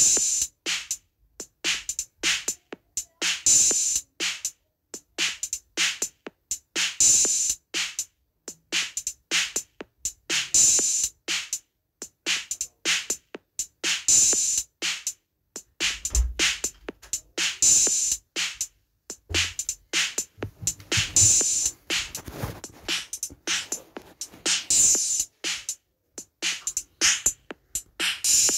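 Rhythmic Turkish halay dance beat on drums: a repeating pattern of quick strikes with a bright accent about every three and a half seconds, growing busier in the last few seconds.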